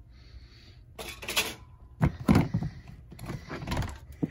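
Plastic storage-bin hamster cage lid clattering and knocking in several bursts as it is handled and lifted open.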